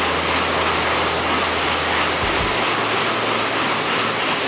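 A Shinkansen bullet train passing through the station at high speed: a loud, steady rush of air and wheel noise.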